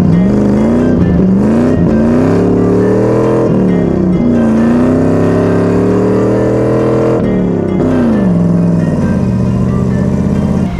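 1999 Dodge Dakota engine pulling through eBay headers and a Cherry Bomb glass-pack exhaust, heard from inside the cab as the truck accelerates. It climbs in pitch, drops sharply at a gear change about a third of the way in, climbs again, then falls away as the throttle eases off and runs steady near the end.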